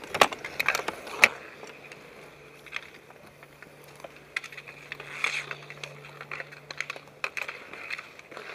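Hockey sticks clacking against each other and the asphalt in a scramble for the ball. Two loud cracks about a second apart come near the start, then a flurry of smaller clacks about four to five seconds in and again near the end.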